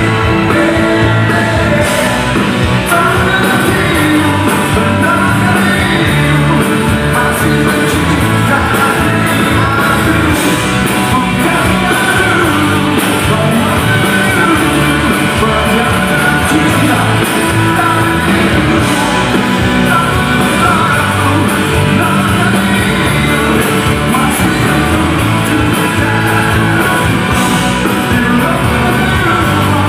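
Live rock band playing a song with lead vocals, guitars and drums, loud and unbroken throughout.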